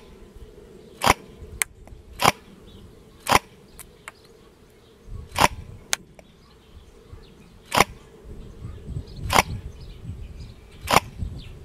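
G&D DTW airsoft electric rifle, a PTW-type replica, firing single shots: seven sharp cracks spaced one to two seconds apart.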